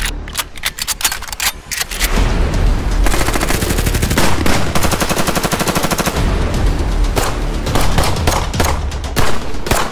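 Gunfire sound effect over a deep bass: separate shots for about the first two seconds, a long rapid machine-gun burst from about three to six seconds in, then a few more scattered shots near the end.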